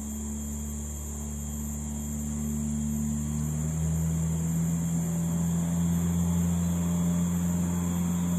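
A low engine drone, steady but growing louder, its pitch dropping a little about three and a half seconds in, over the steady high buzz of insects.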